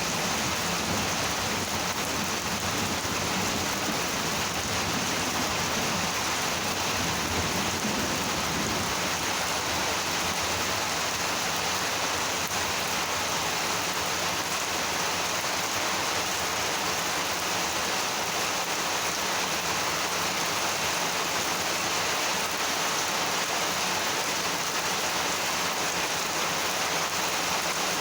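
Heavy monsoon rain falling steadily, an even hiss of rain on surfaces. A low rumble under it fades away about nine seconds in.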